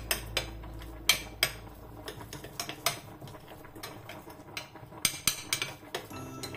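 Metal spoon clinking and scraping against a glass bowl in repeated, irregular strokes, mashing grated pecorino romano and pasta water into a paste.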